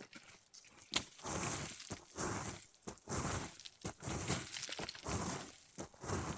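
Repeated crunching of loose rock and gravel, about once a second, with a sharp click about a second in.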